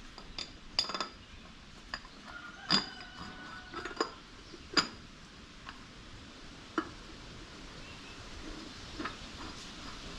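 Metal clinks and clanks as the Farmall H's oil filter cover is set over the new filter and seated on its housing: about half a dozen sharp hits, one followed by a brief metallic ring.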